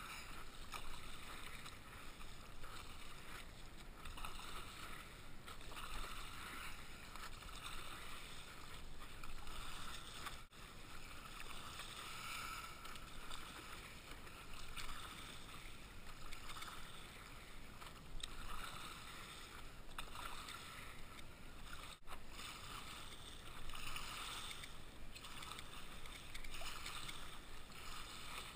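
Water splashing and sloshing from stand-up paddle strokes and the board moving through calm sea, swelling about every two seconds.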